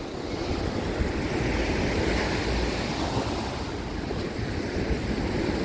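Ocean waves washing onto the shore, a wave swelling and breaking about two seconds in, with some wind on the microphone.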